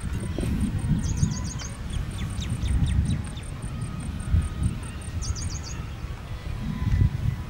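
Small birds chirping: a fast, even run of high pips, about four a second, that stops a little past halfway, with two quick runs of five falling chirps, about a second in and again about five seconds in, and a few lower falling notes between. Under them, a low rumble of wind on the microphone that swells and fades.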